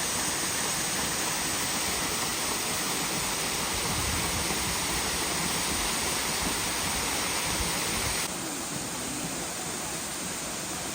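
Russell Falls waterfall: a steady rush of falling water. About eight seconds in it cuts abruptly to a quieter, duller rush.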